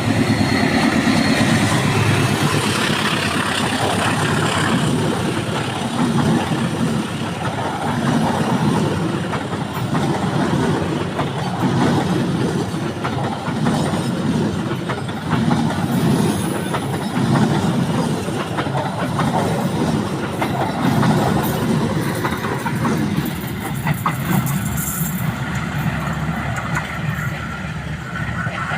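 A train rolling past close by, its cars' wheels clattering rhythmically over the rail joints. The tail of a locomotive horn dies away in the first second or so.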